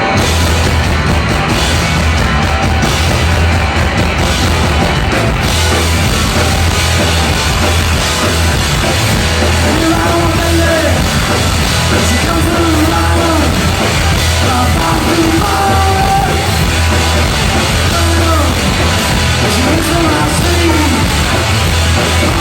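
Rock band playing loudly, with heavy bass, guitar and drums. A sung, partly shouted vocal comes in about halfway through.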